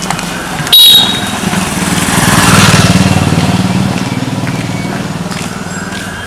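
Motorcycle engine running, building up to its loudest about two and a half seconds in and then easing back, with a sharp, loud knock about a second in.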